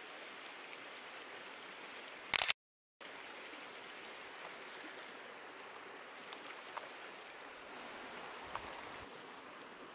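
Shallow creek water running steadily over rocks in a riffle. About two and a half seconds in, a brief loud crackle, then the sound drops out completely for about half a second; a few faint ticks follow later.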